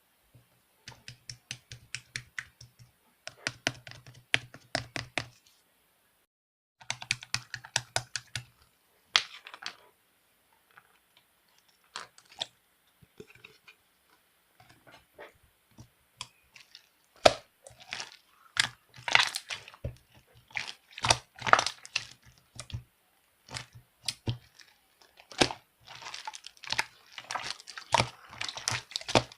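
Rapid sharp clicks coming in bursts of a few seconds with short pauses, thickening in the second half, like fast typing or tapping.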